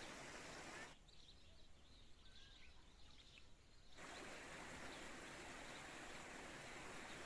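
Faint, steady rush of flowing spring water. About a second in it drops away for roughly three seconds, leaving a few faint bird chirps, then the water sound returns.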